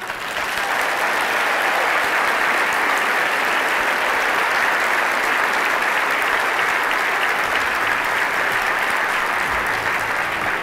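A large audience applauding: many hands clapping together, starting at once and holding steady throughout.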